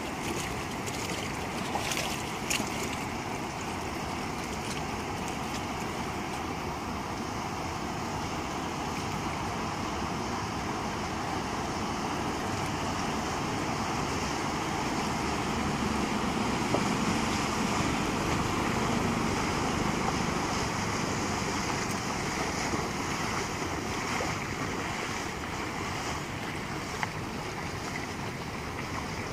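Bayliner 2655 cabin cruiser running across a river under power, its engine and wash heard with water lapping and wind on the microphone, swelling a little louder partway through as the boat comes nearer.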